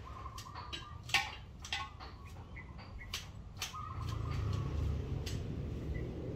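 Outdoor yard ambience with chickens clucking now and then: short sharp calls and a couple of longer drawn-out ones. A low rumble swells from about four seconds in.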